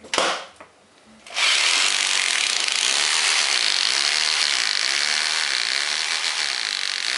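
Corded rotary hammer drilling an 8 mm hole into a masonry wall for a wall plug: a short burst of the drill just after the start, then steady drilling from about a second and a half in.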